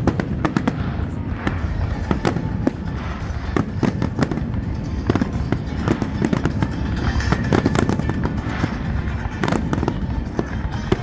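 Fireworks display going off: a dense, irregular run of bangs, several a second, that does not let up.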